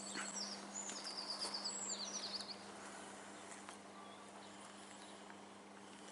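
A songbird singing quick high chirping trills for the first couple of seconds, after which only faint, scattered chirps remain over quiet outdoor background with a steady low hum.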